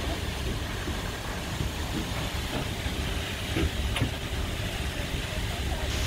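Steady rushing noise of a tall glacier-fed waterfall pouring into the sea close by, under a strong low rumble.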